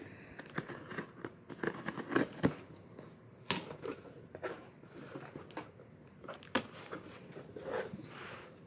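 Cardboard shipping box being opened by hand: packing tape slit with a small blade, then the flaps pulled back. Irregular scrapes, clicks and crinkles of cardboard and plastic packaging.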